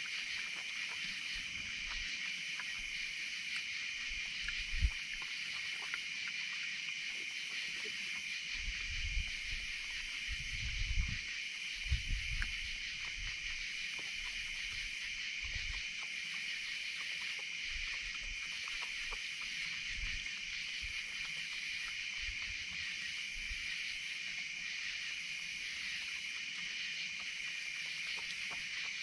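Steady night chorus of insects, a continuous high trill with a fainter layer that pulses about every two seconds. Under it come soft clicks of an opossum chewing food on a wooden table, and a few low knocks.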